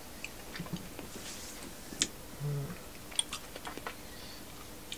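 Quiet sounds of whisky being sipped and tasted: soft mouth and tongue clicks over faint room tone. There is a sharp click about two seconds in as the tasting glass is set on the table, and a brief low hum just after it.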